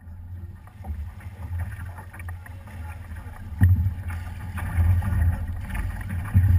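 Paddles dipping and splashing as a crew paddles a big voyageur canoe, with scattered small knocks, under a steady low rumble of wind on the microphone. A sudden thump comes about three and a half seconds in and is the loudest sound.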